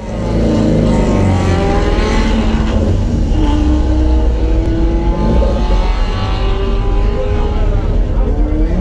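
Alfa Romeo GT Junior 1300's twin-cam four-cylinder engine heard from inside the stripped race cabin, held at raised revs and blipped, its pitch rising and falling, while the car waits at the start of a hill climb.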